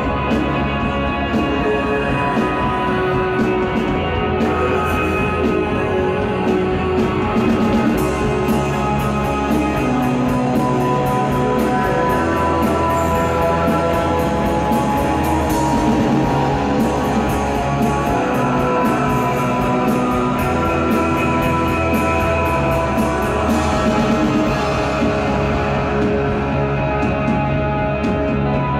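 A rock band playing live: guitars holding dense chords over a drum kit, with cymbals crashing throughout.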